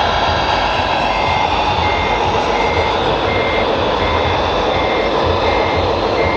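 Reversing beeper of a radio-controlled model truck, a single high beep repeating steadily about three times every two seconds, over the steady running sound of the truck's motor.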